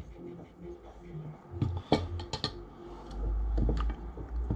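Small metal airsoft gun parts and a screwdriver being handled on a rubber work mat: scattered sharp clicks and light knocks, several in quick succession about two seconds in, with a low rumble for about a second past the middle.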